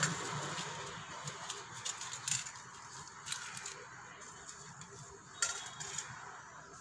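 Stainless steel bowls and cups clinking and tapping as they are handled: a few scattered light knocks, the sharpest a little over two seconds in and another about five seconds in.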